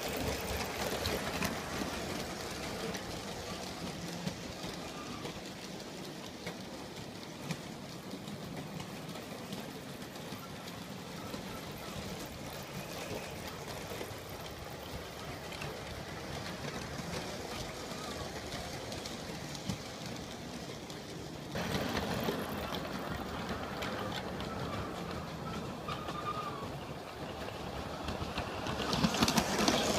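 G scale model train running on its track, a steady whir and rattle of motor and wheels. The sound jumps louder about two-thirds of the way in and swells again near the end.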